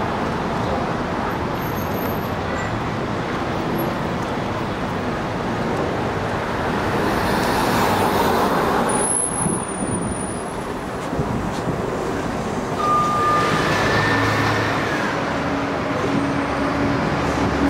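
City buses and street traffic: bus engines running as buses pull in and move off, over steady roadway noise. About three quarters of the way in come two short high squeals.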